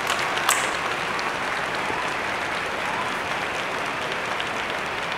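Steady crowd applause, with a sharp click about half a second in.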